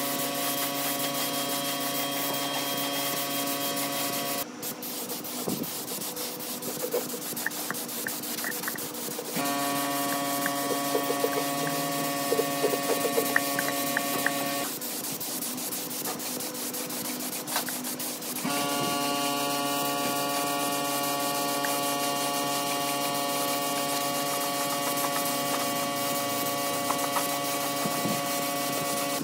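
A motor-driven power tool running steadily while sanding or rubbing down a part. Its tone and noise change abruptly several times, as separate clips are cut together.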